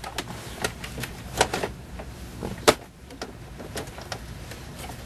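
Hard plastic console trim cover of a Honda Odyssey being fitted into place by hand: scattered plastic clicks and knocks, with one sharp snap a little past halfway.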